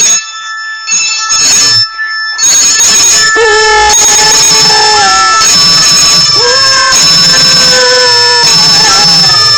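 A dog howling along with a sound playing from a cellphone: long howls with sliding, wavering pitch begin about three seconds in over the phone's steady high-pitched electronic tones.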